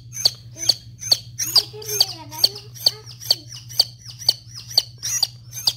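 Newly hatched gamefowl chick peeping loudly and steadily, about two sharp peeps a second. These are the distress peeps of a chick held in the hand while the web between its toes is cut with scissors to mark it.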